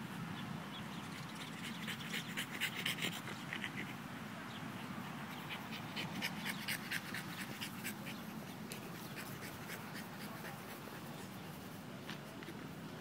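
French bulldog panting as it rolls on its back in the grass, with clusters of quick scratchy strokes about two to four seconds in and again around six to seven seconds in.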